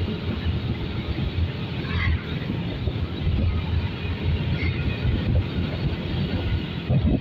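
Motorbike riding along at steady speed: engine running under a continuous rumble of wind buffeting the microphone.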